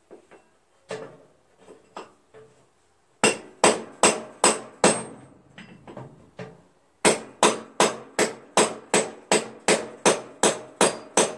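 Hammer blows on the rear wheel of a riding mower, trying to knock a wheel free that is stuck on its axle. A few light taps, then five hard blows, a short lull, and then a steady run of about a dozen more, roughly three a second, each with a short ring.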